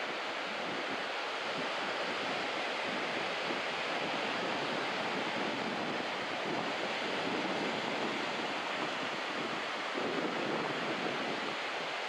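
Steady wash of small surf breaking and running up a sandy beach, mixed with wind on the microphone.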